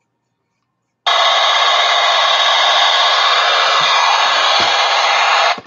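Walkie-talkie blaring loud, steady static. It starts suddenly about a second in and cuts off just before the end.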